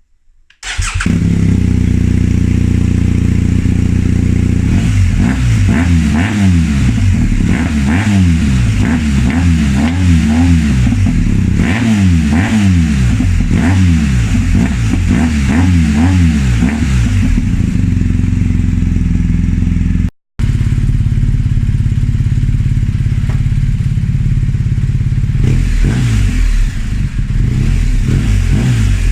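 BMW R1250GS Adventure's boxer-twin engine idling through its exhaust, blipped up and down repeatedly in quick revs for a stretch, then settling back to a steady idle with a few more revs near the end. It cuts out briefly about two-thirds of the way through.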